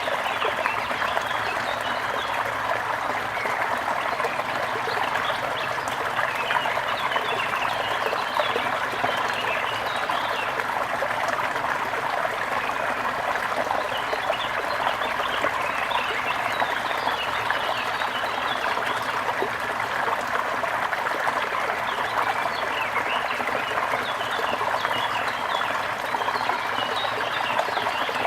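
Waterfall: a steady rush of falling water, with many small splashes and trickles over it.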